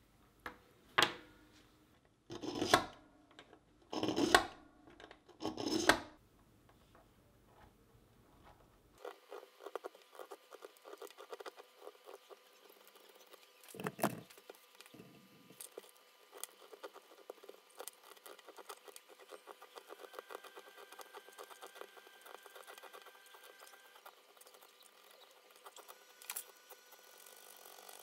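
A small pocket knife shaving wood off a pencil by hand: four separate scraping cuts in the first few seconds, then a long run of quick small scrapes and clicks with one louder knock partway through.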